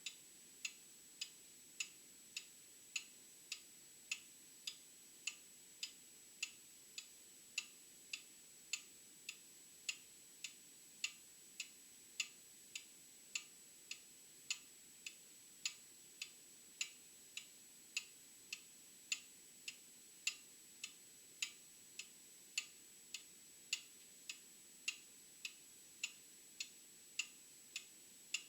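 Old mechanical clock ticking steadily, a little under two ticks a second, with the beats alternating stronger and weaker in a tick-tock.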